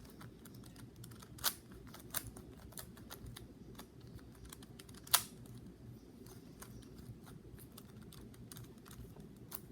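GAN 3x3 speed cube being turned by hand: quick, irregular plastic clicks and clacks as the layers turn. Two louder snaps come about a second and a half in and about five seconds in.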